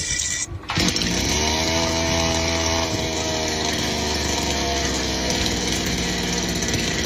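Chinese 52cc two-stroke chainsaw engine comes in abruptly under a second in and keeps running. Its pitch wavers for the first few seconds, then settles to a steady run.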